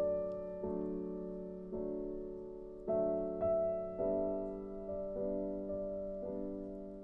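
Soft background music: slow sustained chords, a new chord about once a second, each fading before the next.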